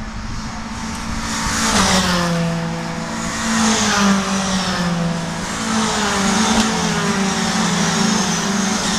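Ginetta race cars passing one after another in a pack, the first arriving about a second and a half in. Each car's engine note drops in pitch as it goes by.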